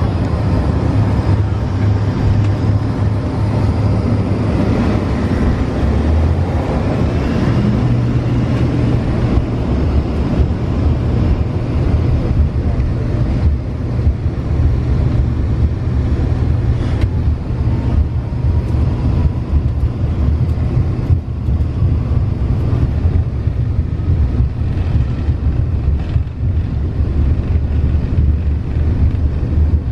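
Cabin noise inside an Embraer ERJ-135 regional jet: its twin Rolls-Royce AE 3007 turbofans running steadily with a faint whine over a low rumble as the aircraft rolls along a wet runway.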